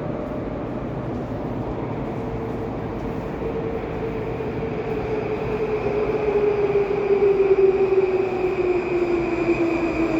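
Baltiets metro train running, heard from inside the car: an electric whine from the traction drive glides steadily down in pitch over the rumble of the wheels, the train slowing down. The noise grows louder in the second half.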